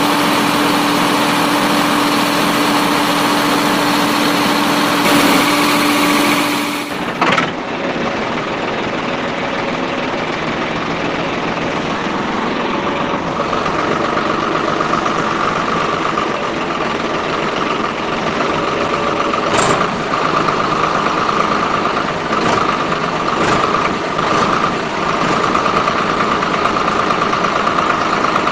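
Small electric motor of a miniature homemade tractor running steadily with a high whirring whine; about seven seconds in the sound cuts and resumes at a different pitch.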